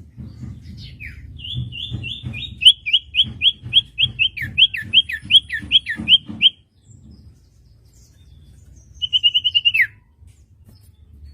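Common iora (cipoh) singing: a run of about twenty quick, repeated high notes, each falling in pitch, lasting about five seconds. After a pause comes a short fast trill ending in a downward slur.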